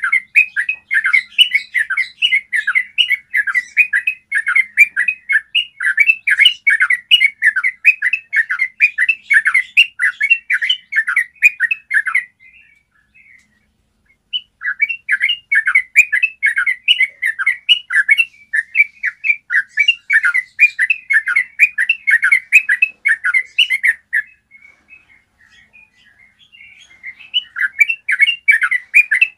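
Yellow-vented bulbul singing long rolling phrases of quick, clear chattering notes, with two short pauses of a couple of seconds between phrases.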